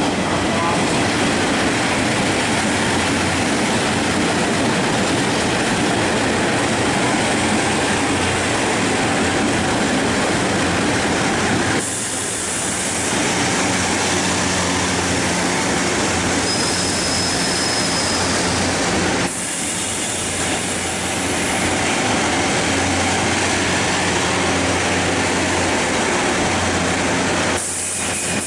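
Taiwan Railway DR2900/DR3000 diesel multiple unit train pulling into a station: a steady drone of the underfloor diesel engines and the rumble of wheels on rail as the carriages pass. A brief high squeal comes about two-thirds of the way through.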